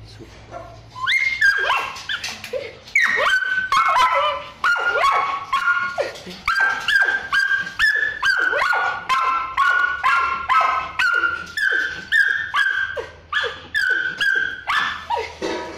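Kennelled shelter dogs barking and yelping in quick succession, about two short high barks a second, starting about a second in.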